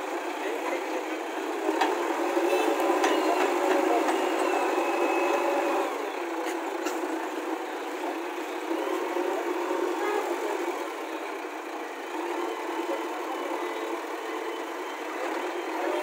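JCB 3DX backhoe loader's diesel engine running steadily under load while its backhoe arm lifts a bucket of mud, with a few short knocks in the first half.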